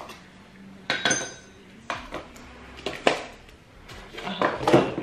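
Dishes and plastic containers being handled on a kitchen counter: a few separate knocks and clinks, one ringing briefly about a second in, then a busier clatter near the end.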